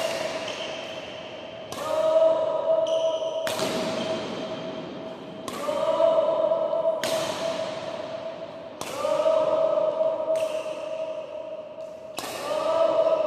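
Badminton racket strokes hitting a shuttlecock at an even pace, about one hit every second and three quarters, each sharp crack echoing in the hall. A steady pitched tone swells up after every other hit and fades.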